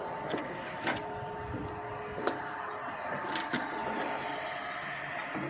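Machinery running with a steady whine, broken by a few sharp knocks about one, two and three and a half seconds in.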